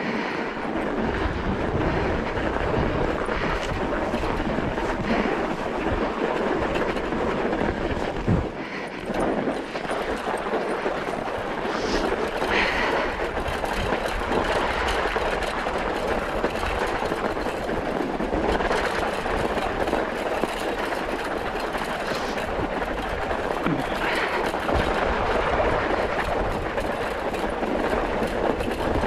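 Kickbike Fat Max kick scooter's fat tyres rolling over packed snow, a steady rolling noise with rattle from the scooter.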